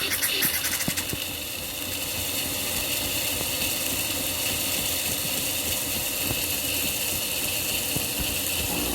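Philips Series 2200 espresso machine running: a steady mechanical hum and hiss with faint irregular ticks. A higher hiss fades out about a second in.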